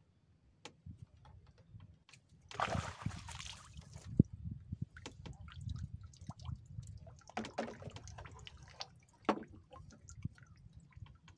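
A hooked fish splashing as it is scooped up in a landing net and lifted out of the water, water streaming and dripping off the net's mesh. A single sharp knock about four seconds in, and a second splashy stretch a few seconds later.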